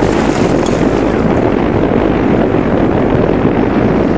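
Steady, loud rush of wind buffeting the microphone on a boat under way, with no let-up or change.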